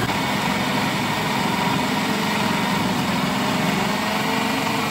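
Electric food processor running at a steady speed, its blade chopping raw beef mince with fresh herbs and chillies.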